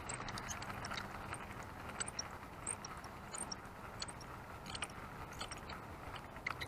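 Fishing reel being cranked during a lure retrieve: faint mechanical clicking and whirring over a low steady hum.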